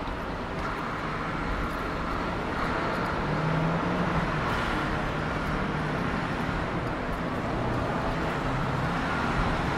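City street traffic: the steady hum of engines and tyres of vehicles driving past, growing slightly louder through the stretch.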